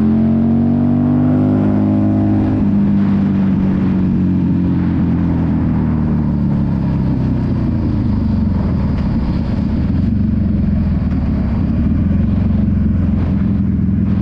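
Motorcycle engine accelerating hard, its pitch climbing over the first couple of seconds and then holding steady at high revs.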